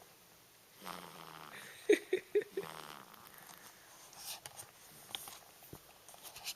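A newborn baby snoring: one drawn-out snore starts about a second in, with a quick run of four short, loud sounds about two seconds in.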